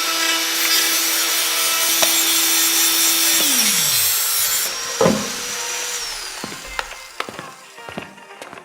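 Fein Multimaster cordless oscillating multi-tool cutting wood with a steady high hum, then switched off about three and a half seconds in, its pitch falling as it winds down. A knock about five seconds in and a few light clicks follow.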